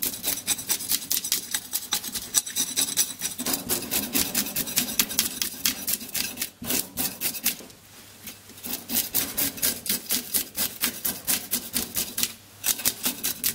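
A knife blade scraping the scales off a sea bream in quick, repeated strokes, several a second, with a few short pauses.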